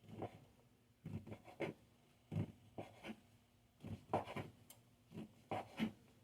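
Knife cutting through stacked tortillas, a string of short, irregular scraping strokes as they are sliced into thin strips.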